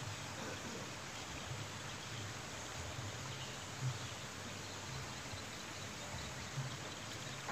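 Steady outdoor background noise with an uneven low rumble, and a short louder bump about four seconds in.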